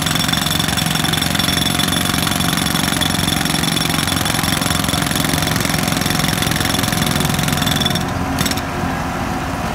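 Jackhammer pounding at a road surface in rapid, steady blows. About eight seconds in the hammering eases off and only a lower rumble carries on.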